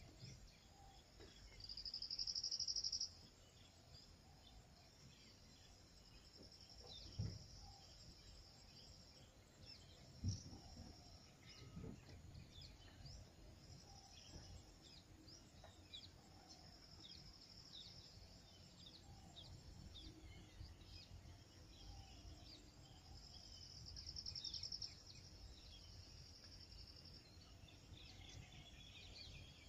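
Faint outdoor ambience of insects trilling in high, pulsing buzzes, loudest in a burst about two seconds in and again near the end, with scattered short bird chirps. A few brief low thumps come near the middle.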